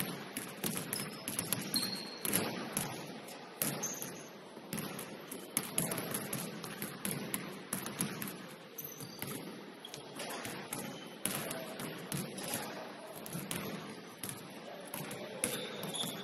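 Basketballs bouncing on a hardwood gym floor during dribbling: a steady scatter of irregular thuds, with a few brief high squeaks, likely from sneakers.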